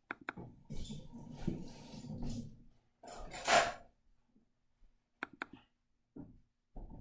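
Kitchen clatter in the background: dishes and utensils clinking and knocking, with a short rush of noise about three seconds in and a few dull thumps near the end.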